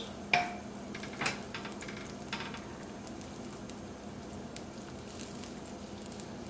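Butter and olive oil sizzling steadily in frying pans as the butter melts, with a few clinks of the stirring utensil against the pan in the first couple of seconds.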